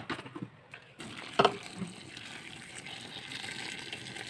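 Boiling water poured in a steady stream into a metal cooking pot over chicken, onions and spices, a gushing pour that starts about a second in and fills out toward the end. One sharp knock sounds just after the pour begins.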